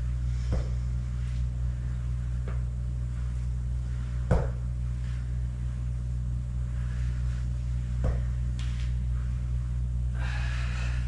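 Steady low hum with a handful of soft knocks scattered a few seconds apart, the loudest about four seconds in.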